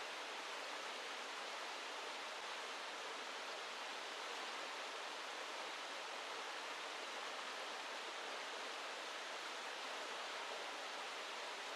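Steady rushing of a small river flowing over shallow riffles, an even hiss with no change.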